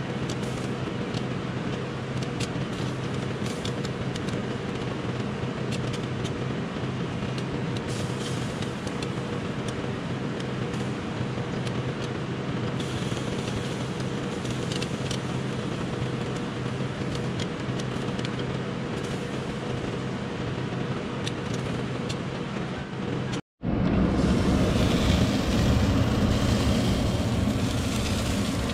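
A steady mechanical hum over a constant noise, with scattered faint light clicks. The sound drops out for a moment about 23 seconds in and comes back a little louder.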